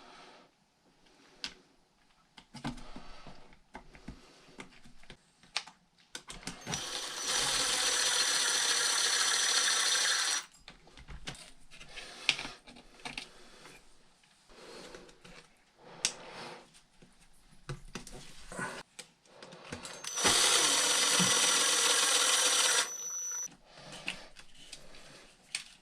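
Small clicks and taps of shock parts being handled and fitted, broken twice by a steady whirring run of about three seconds with a thin high whine, about seven seconds in and again about twenty seconds in.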